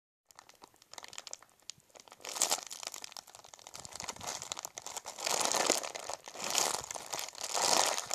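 Plastic packaging crinkling as it is handled and squeezed, in irregular rustling bursts that grow louder toward the end.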